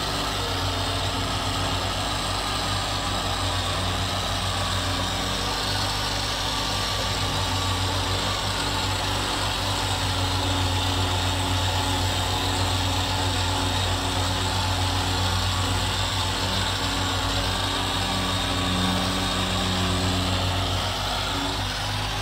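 A small engine or motor running steadily: an even low hum with a hiss above it.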